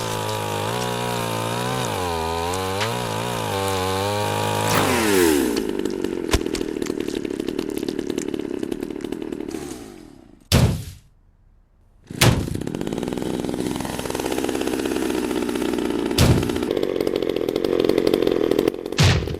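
Chainsaw running and revving, its pitch wavering at first and then settling into a steady buzz. It cuts out for a moment about halfway through, with a sharp hit on either side of the gap, then runs again with a few more hits.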